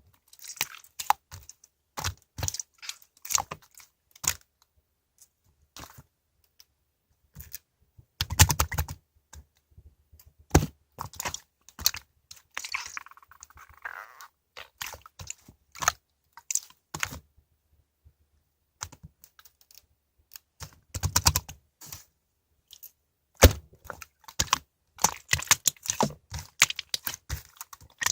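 Slime squished and pressed by hand, making irregular sticky clicks and crackling pops, with denser bursts several times.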